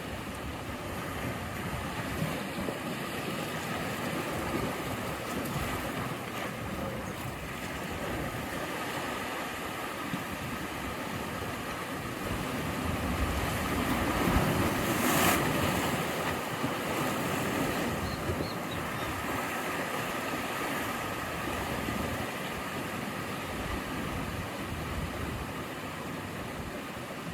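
Sea waves washing and breaking against the shore in a steady surf. One wave swells and breaks louder about halfway through, then the wash settles again.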